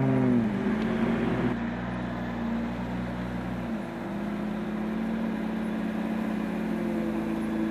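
Off-road truck engine running under load, its pitch falling in the first second as it eases off. About four seconds in, the sound switches abruptly to a steady engine hum.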